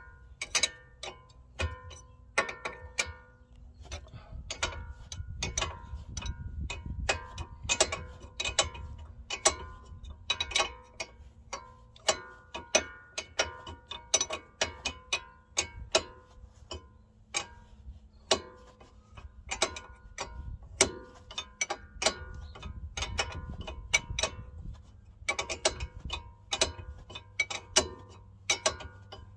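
A metal spanner worked back and forth on a Ford Territory's ball joint nut: an irregular string of sharp metallic clicks and clinks, some in quick runs.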